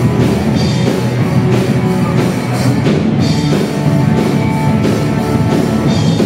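Live rock band playing an instrumental passage between sung lines: drum kit and electric guitars with a steady beat.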